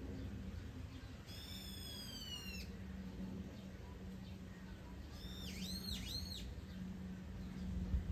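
Bird calls: a drawn-out call sliding down in pitch about a second in, then a quick run of rising-and-falling notes around five seconds in. A steady low hum runs underneath.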